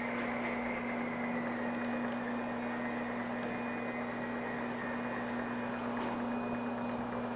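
Carpet cleaning machine running with a microfibre scrub pad, a steady motor hum over the scrubbing of the pad on the carpet as it works a stubborn stain.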